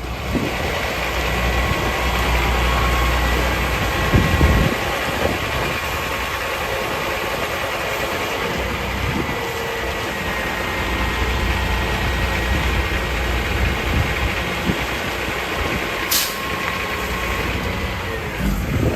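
A heavy diesel engine runs steadily with a deep rumble and a faint steady whine over it. There is a knock about four seconds in and a short sharp sound near the end.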